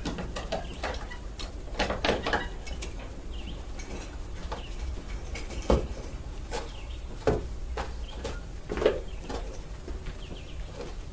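Horse being led into a barn: scattered sharp hoof clops on the hard floor and light metallic clinks, over a steady low rumble.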